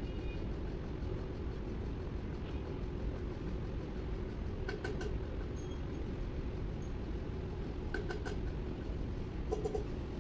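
Steady low machine hum and rumble, with a few short clicks about five seconds in, about eight seconds in and near the end.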